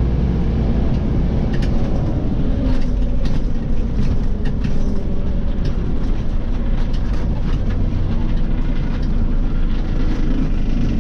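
Inside a Scania OmniCity city bus on the move: a steady low rumble of engine and road, with short rattles and clicks from the fittings. The engine note slides down about two to three seconds in.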